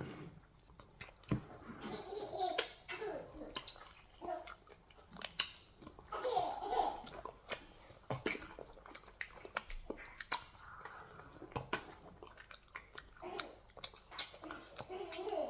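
People chewing and smacking while eating eba (garri) with sticky ogbono soup by hand: many short, wet mouth clicks, with soft vocal sounds now and then.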